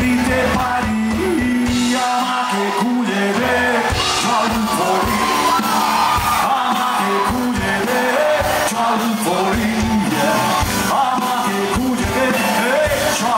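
Live rock band: a male vocalist sings a melody into a microphone over electric bass and a drum kit keeping a steady beat.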